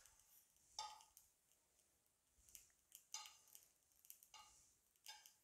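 Faint scrapes of a metal spoon scooping roasted sesame seeds out of a non-stick frying pan into a small steel bowl, a handful of short separate strokes with the rustle of the dry seeds.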